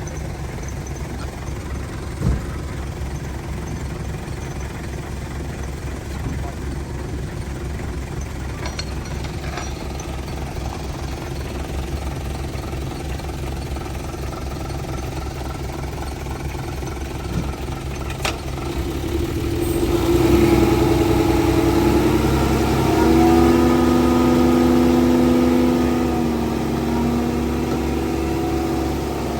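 Heavy diesel earthmoving engine running steadily with a low rumble, with one sharp knock about two seconds in. Near the last third it revs up, louder, with a steady higher-pitched note over the rumble.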